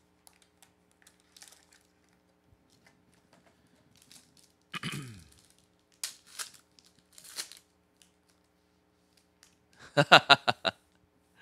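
Foil trading-card pack being handled and torn open: soft clicks, crinkling and tearing rustles. A man's voice briefly sounds twice, a low falling sound about halfway and a short quick burst near the end, which is the loudest sound.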